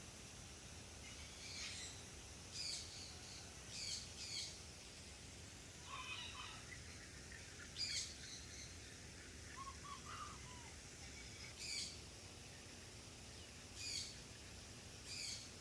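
Wild birds calling in the trees: short, high calls every second or two, with a few lower chirps about six and ten seconds in, over a steady hiss.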